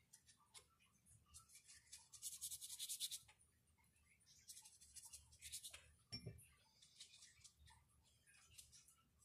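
Faint, scratchy strokes of a paintbrush scrubbing water into marker ink on paper, in three quick runs of rapid back-and-forth strokes, with a soft knock a little past the middle.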